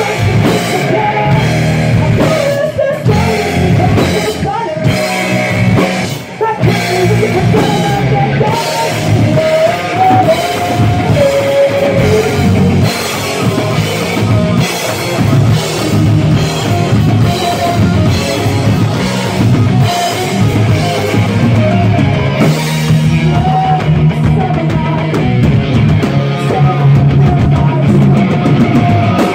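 Live heavy rock band playing loud, with electric guitar and a drum kit.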